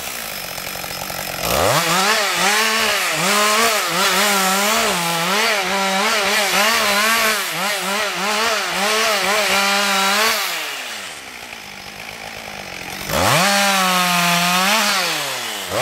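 Husqvarna 562 XP two-stroke chainsaw limbing a felled trunk. The engine drops to idle, revs up about a second and a half in, then rises and falls in quick throttle bursts as branch after branch is cut for about nine seconds. It falls back to idle for a couple of seconds, then revs up to full speed again for another cut near the end.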